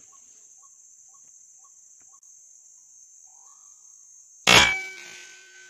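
A single sharp shot from a Bocap 500cc air rifle about four and a half seconds in, followed by a brief ringing tone; it is the shot that hits the targeted white-breasted waterhen. Before it, a steady high insect buzz and a few faint, evenly spaced chirps.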